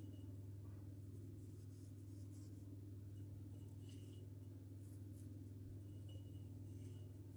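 Quiet room tone: a steady low hum with a few faint, soft rustles and scratches.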